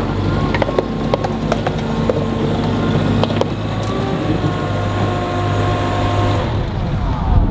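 Hydratrek tracked amphibious vehicle driving slowly on pavement, its engine and drive running steadily with scattered sharp clicks. Near the end the pitch falls as it slows to a stop.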